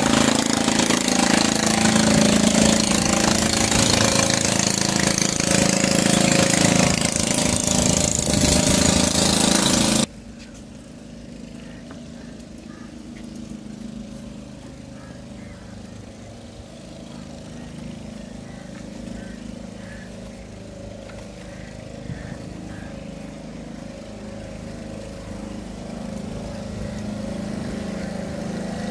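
An engine running steadily, with a loud hiss over it for about the first ten seconds; after an abrupt cut it is quieter and slowly grows louder toward the end.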